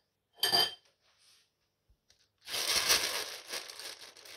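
Kitchen handling noise: a short sharp clatter about half a second in, then a crinkling, tearing rustle lasting nearly two seconds.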